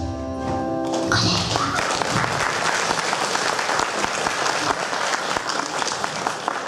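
Audience applauding, a dense patter of many hands that thins out toward the end. It comes in about a second in, as the last held chord of a song dies away.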